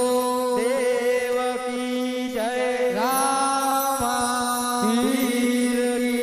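Indian devotional bhajan music: a steady held drone under a melody of long sustained notes, some sliding up into the next pitch, with no sung words.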